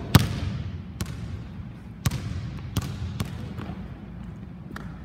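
A basketball bouncing on a hardwood gym floor: about seven bounces at uneven intervals, the first the loudest, each echoing in the hall.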